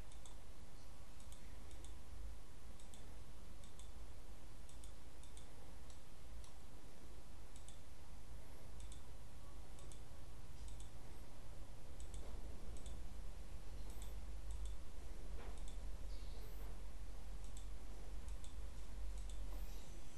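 Computer mouse clicking: single sharp clicks, irregular and roughly one a second, as drawing objects are selected one at a time, over a steady low hum.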